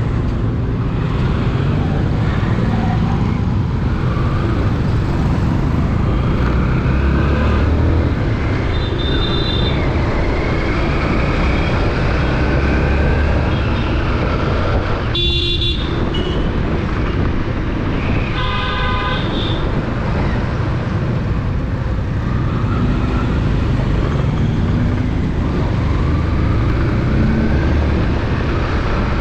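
Motorcycle ride through street traffic: steady engine and road rumble with wind on the helmet camera's microphone. Two vehicle horns sound, a short blast about fifteen seconds in and a longer one a few seconds later.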